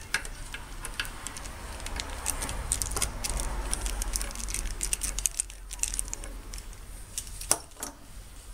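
Steel socket and driver working a bench vise's jaw-plate screws loose, with a run of sharp clicks and metal clinks that is busiest in the middle and thins out near the end.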